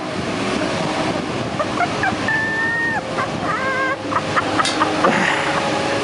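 Steady rush of water, with a few short high-pitched calls about two to four seconds in.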